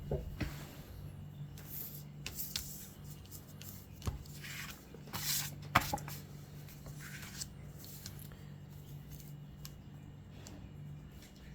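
Paper scratch-off lottery tickets being handled and shuffled, with scattered clicks and short rustles over a steady low hum.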